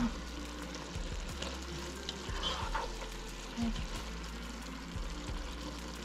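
Eggplant, minced pork and tofu sizzling in a frying pan on the stove while being stirred, with a few light clicks of a utensil against the pan.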